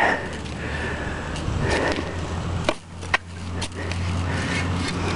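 A steel shovel blade scraping and chopping into sandy soil in a hole: several short scrapes and thumps a second or so apart, over a steady low hum.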